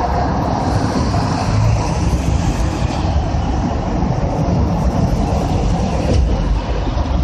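A 7.3-litre turbo diesel engine running under way, a steady low rumble with road noise, with a faint turbo whistle above it.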